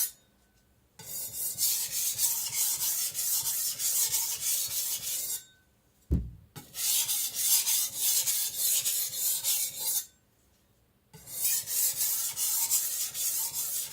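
IKEA Vardagen Chinese cleaver's edge being stroked back and forth on a whetstone, a rapid gritty scraping of about three strokes a second in three runs with short pauses between: light strokes cleaning up the freshly set edge. A single low knock about six seconds in.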